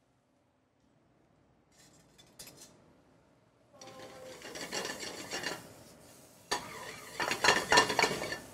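A spoon stirring and scraping cauliflower around a stainless steel sauté pan, starting after a quiet opening and loudest in the last two seconds or so.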